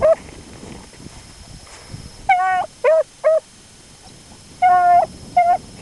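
A beagle baying while running a rabbit's scent line: one long bawl followed by short chop barks, twice over, after a brief yelp at the start.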